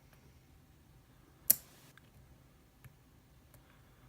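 Lock picking: a hook pick working the pin tumblers in a padlock's keyway, giving faint metallic clicks, with one sharper click about a second and a half in.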